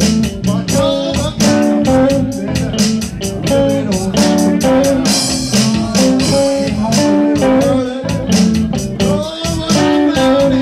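Live rock band playing loudly: electric guitar and electric bass over a drum kit with a steady beat.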